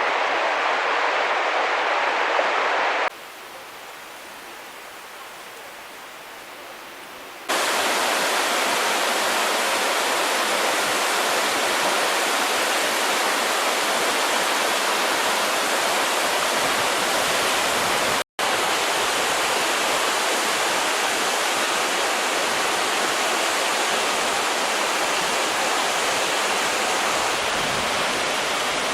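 Mountain river rushing steadily over rocks, a loud even roar of water. It cuts to a much softer rush for about four seconds near the start, then returns, with a momentary break about two-thirds of the way through.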